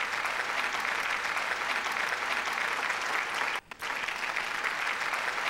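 Applause: many hands clapping at a steady level, with a brief break about three and a half seconds in.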